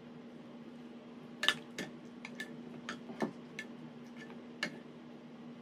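Cutlery clinking against plates during a meal: about ten light, irregular clicks, some with a short ring, the first the loudest. A steady low hum runs underneath.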